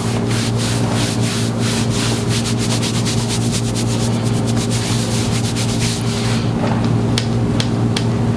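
Percussive massage gun running with a steady motor hum, its head rubbing and tapping over the body in quick, irregular strokes.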